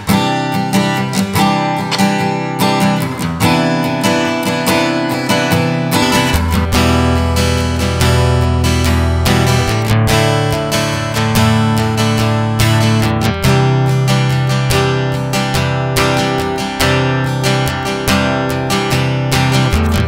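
Strinberg SD201HC TOS acoustic-electric guitar playing a strummed chord sequence. The sound comes first through a condenser microphone and then through the guitar's own SE-60 preamp pickup, the tone turning fuller in the bass about six seconds in.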